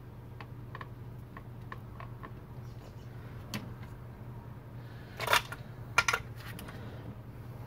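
Hands working wire connectors and plastic trim in a car's opened centre console: small scattered clicks, a louder plastic clatter a little after five seconds in, then two sharp clicks.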